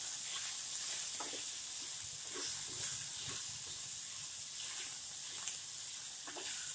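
Chopped vegetables and spices sizzling as they fry in a pan, with a spatula stirring them and scraping the pan now and then.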